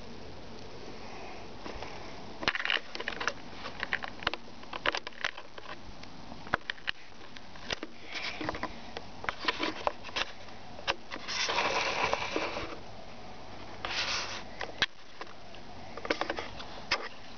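A cat playing with a wand-and-string toy on carpet: scattered clicks, scratches and rustles, starting a couple of seconds in, with a longer rustling scrape near the middle and a shorter one soon after.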